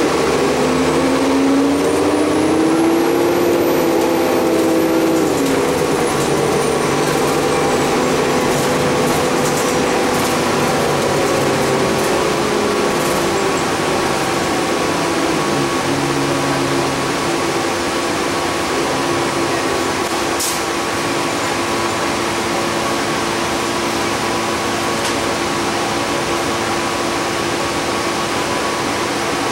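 City transit bus running, heard from inside the passenger cabin: a steady drone with a constant hum, and in the first few seconds a drivetrain whine that rises in pitch and then falls away.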